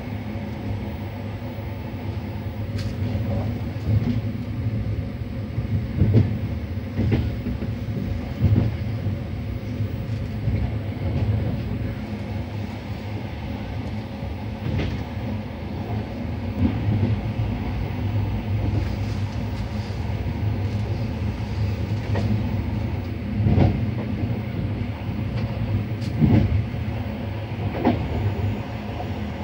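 Sr1-hauled Intercity train running on the track: a steady low rumble of wheels on rail, broken by short clacks and knocks as the wheels cross rail joints and switches, the loudest about a quarter of the way in and again near the end.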